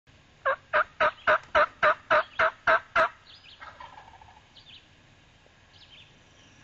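A run of about ten loud turkey yelps, evenly spaced at roughly four a second, then faint songbird chirps.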